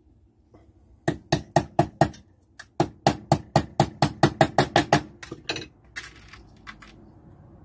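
Small hammer tapping panel pins through tin into a wooden block. A run of about five quick taps, a short pause, then a longer run of taps at about four a second, which stops a little past halfway.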